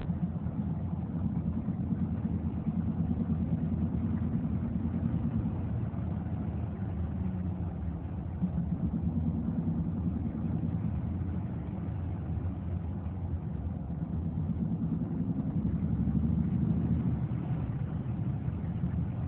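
Steady low engine drone heard from inside a car, swelling slightly in level every few seconds.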